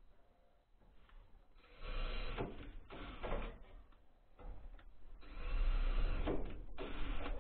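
Cordless drill-driver running in short bursts, driving screws overhead into the eave trim, with a longer run near the end.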